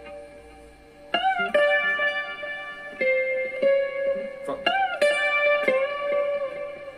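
Clean-toned Stratocaster-style electric guitar: a held chord rings and fades, then from about a second in a melodic phrase of picked notes and double-stops with string bends.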